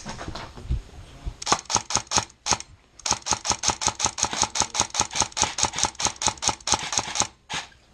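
AK-style airsoft rifle firing strings of rapid, evenly spaced shots, about seven a second: a short string about a second and a half in, then a longer one lasting about four seconds, and a single shot near the end.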